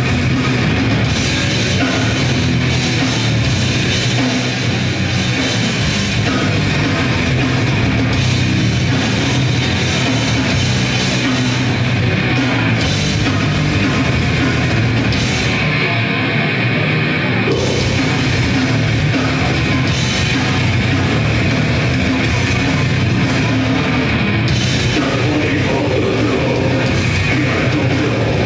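A grindcore band playing live at full volume: distorted guitar, bass and fast drums in a dense, unbroken wall of sound, heard through the crowd-side room sound of the venue.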